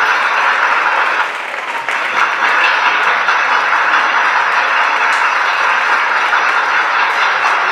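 Audience clapping steadily, with a brief dip in the clapping a little over a second in.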